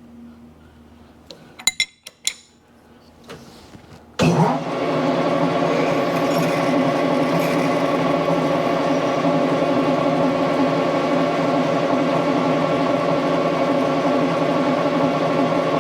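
A few metallic clinks, then a machine tool's motor starts about four seconds in and runs steadily while a 5/16-inch drill bit bores a shallow hole in a steel part, ready for tapping.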